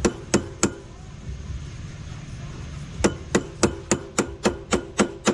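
Sharp metallic hammer taps, about three a second, in a short run at the start and a longer run of about nine strikes from around three seconds in. They are tapping a stuck metal part loose, which gives way just after.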